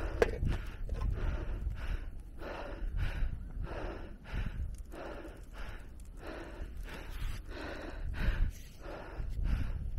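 A cyclist breathing hard and fast, heavy breaths in and out one to two a second, out of breath at the top of a steep hill climb. A low steady rumble lies beneath.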